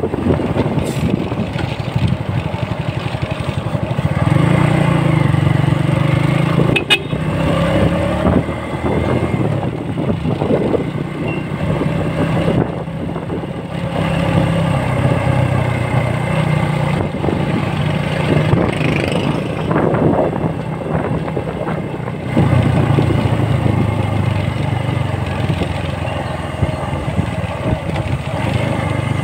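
Motor vehicle engine running while travelling on a road, with its note and loudness shifting several times, and one sharp click about seven seconds in.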